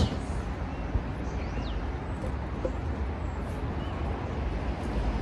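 Outdoor ambience: a steady low rumble, like distant city traffic, with a few faint bird chirps and a small click about a second in.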